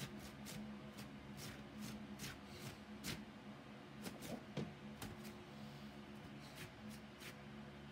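Faint handling sounds: irregular light clicks and rustles of a hand moving a small card over a bedspread, over a steady low hum.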